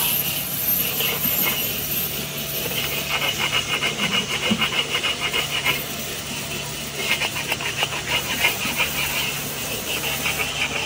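Gloved hands rubbing and scrubbing the surface of a cast iron wok in quick repeated strokes, a rasping scuffing sound that comes in stretches, over a steady low hum.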